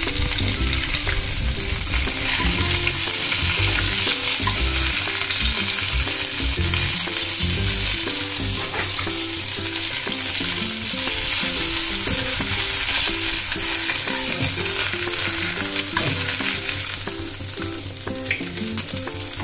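Katla fish pieces sizzling in hot oil in a frying pan, with occasional scrapes and taps of a metal spatula as the pieces are lifted out. The sizzle eases a little near the end as the pan empties.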